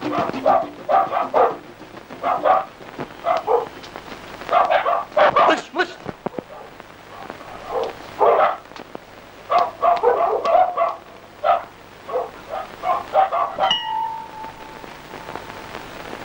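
A dog barking repeatedly in short clusters of barks. A brief steady tone sounds near the end.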